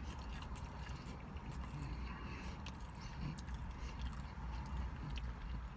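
A person chewing a mouthful of slider burger with faint wet mouth sounds, over a low steady hum.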